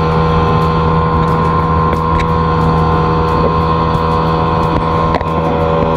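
A small fishing boat's motor running steadily at cruising speed, with a couple of light knocks.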